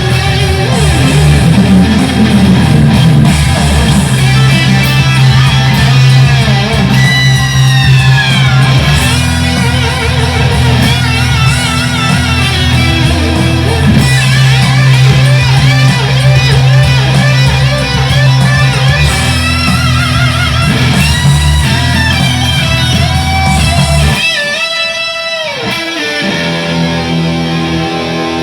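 Fender Stratocaster electric guitar played through a Boss Katana 100 amplifier: improvised playing with sustained notes, string bends and vibrato. Near the end the low notes drop out under a sweeping downward pitch dive, and sustained notes ring again.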